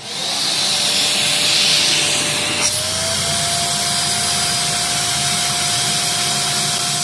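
Riccar vacuum cleaner switched on and running with a loud, steady motor whine and rushing air. About three seconds in there is a click and the motor's pitch steps up slightly, then holds steady.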